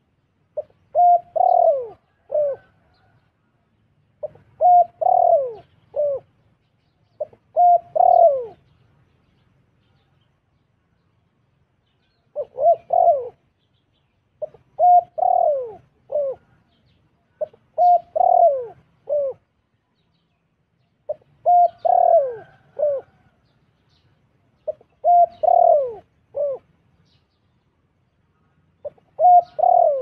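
Spotted dove cooing: short phrases of three or four coos, each with a falling note, repeated about every three seconds, with a brief pause about a third of the way through.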